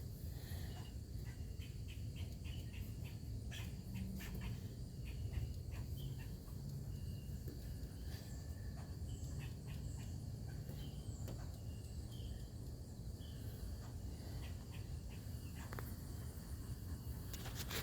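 Driver's door panel of a 2023 Toyota Camry SE rattling: irregular light clicks and ticks over a steady low road rumble in the cabin.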